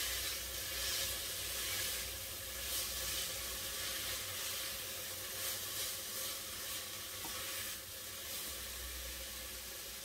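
Chopped onion, celery, bell peppers and garlic sizzling steadily in hot olive oil in an enamelled cast-iron pot, stirred around with a spoon.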